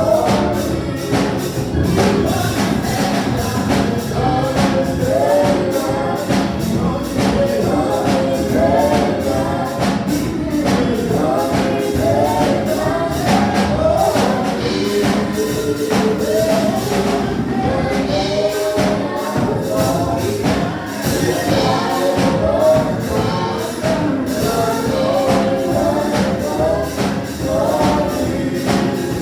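Gospel praise music: a choir of voices singing over a band, with a steady percussion beat.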